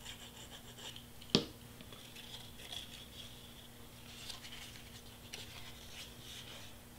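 Faint handling of cardstock: light rustling and crinkling as a glued paper tab is worked and pressed into place by hand, with one sharp tap about a second and a half in.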